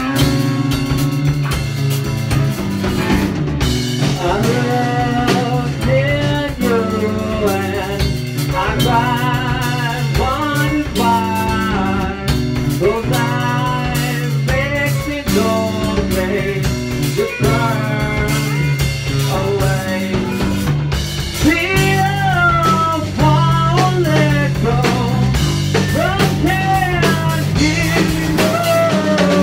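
Rock band playing live in a rehearsal room: drum kit, electric bass and electric guitar, with a lead vocal through a microphone coming in a few seconds in.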